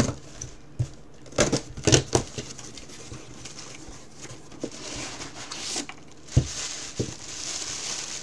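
A small cardboard shipping box being handled and opened, with a few sharp knocks of cardboard early on and one more later, then a steady crinkling rustle of plastic packing being pulled out of the box over the last few seconds.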